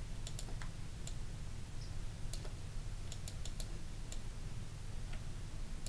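Scattered sharp clicks of a computer keyboard and mouse, several close together about three seconds in, over a steady low hum.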